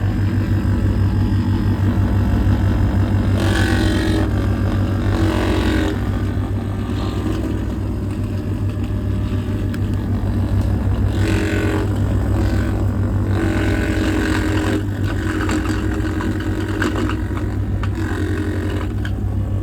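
Hisense clothes dryer running empty, making a loud, steady, low rumble with a fast pulsing texture, overlaid every few seconds by louder bursts of harsher, higher-pitched noise. This abnormal noise developed after two years of use.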